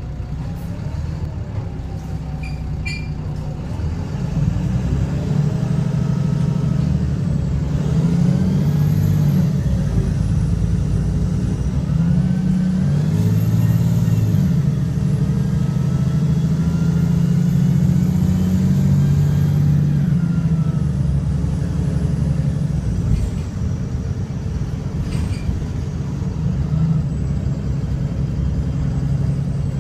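Engine of a VDL SB200 single-deck bus with a blown exhaust, heard from inside the cabin as the bus pulls away and accelerates. Its note climbs and drops back at each gear change of the Voith automatic gearbox, several times over. A faint high whine rises and falls alongside it.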